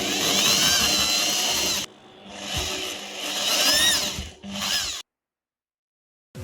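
Small electric drill running in three bursts, its high motor whine rising and falling in pitch as it speeds up and bogs down under load. It cuts off abruptly about five seconds in.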